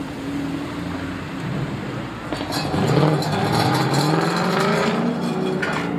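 A high-performance car's engine with a loud exhaust. It runs low, then about two seconds in it is revved hard and accelerates, its pitch climbing, before easing off near the end.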